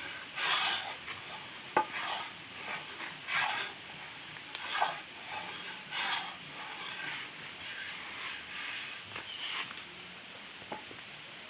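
Traditional manual hand plane shaving wood: repeated rasping strokes about every second and a half, with a sharp click among them, dying away near the end.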